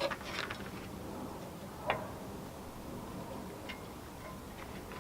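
A few scattered light clicks and knocks of parts and hand tools being handled during pipework removal on the car, the sharpest about two seconds in.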